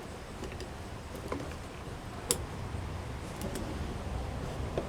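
A few faint, sharp clicks over a low background rumble as the plastic nozzle of a windshield adhesive cartridge is handled and cut.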